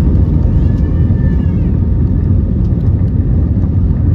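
Airbus A320neo heard from inside the passenger cabin: a loud, steady low rumble of engine and airflow noise.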